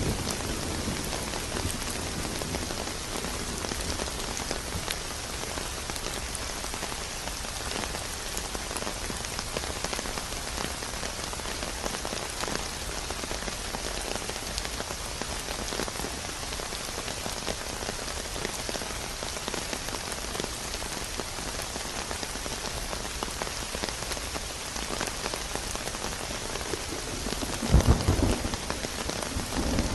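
Steady rain falling on a surface, an even hiss of many drops. Near the end a short, louder, low clap of thunder breaks through the rain.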